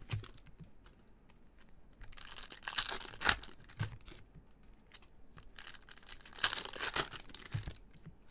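A Topps Chrome trading-card pack's foil wrapper being torn and crinkled, and cards being handled and slid against each other. The rustling comes in two bursts, with a sharp snap about three seconds in.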